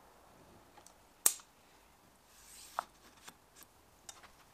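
Caulking gun clicking as it is worked while laying a bead of sealant into a mould's corners. One sharp click about a second in is the loudest, followed by a brief hiss and several lighter clicks.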